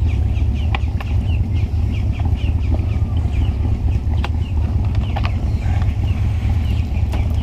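A bird chirping in quick repeated short notes, about three a second, over a steady low rumble. A few sharp knocks come as the plastic fish basket is handled.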